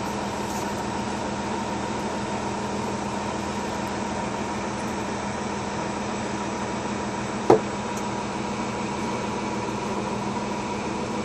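Concrete mixer truck running steadily with a constant mechanical drone and hum. A single sharp knock sounds about two-thirds of the way through.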